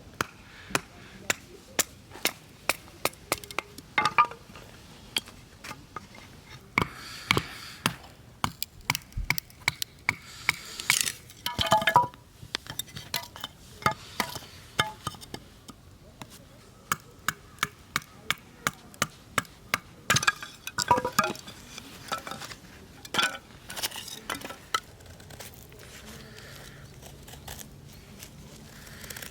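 Repeated sharp knocks and cracks from hard strikes, in runs of several blows a few tenths of a second apart, with a few brief ringing clinks.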